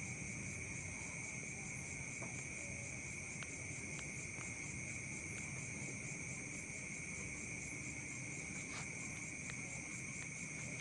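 Steady high-pitched insect chirring in the background, with a few faint clicks.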